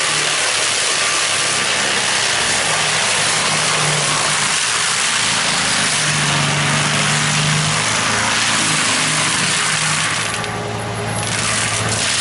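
Heavy excavator's engine running hard, a loud steady wash of noise over a low engine hum, easing briefly near the end.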